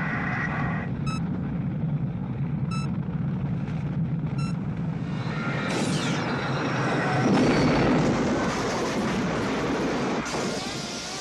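Sci-fi spaceship sound effects for the landed Nostromo: a steady low mechanical rumble with three short electronic beeps about a second and a half apart, then a rushing hiss that swells to its loudest about eight seconds in. Near the end, quick repeated electronic chirps.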